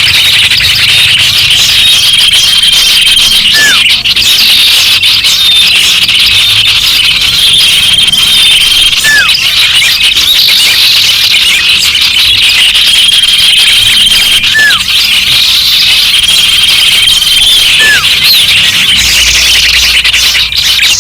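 Dense chorus of many small garden birds chirping and twittering at once. Through it, a held high whistle and a short downward-sliding whistle recur together every five seconds or so, the pattern repeating as in a looped recording.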